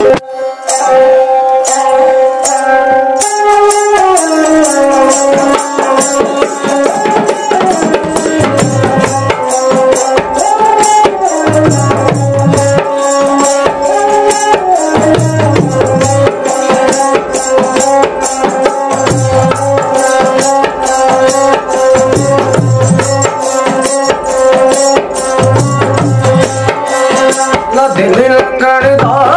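Instrumental folk music: a ravanahatha, a bowed fiddle, plays a sliding melody over a held drone note, and a dholak drum comes in about eight seconds in, playing a steady rhythm.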